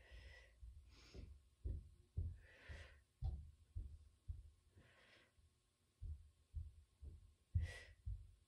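A woman's breathing during single-leg circles on an exercise mat: about five short, audible breaths, paced to the inhale-in, exhale-out of the leg circles, with soft low thumps of movement throughout.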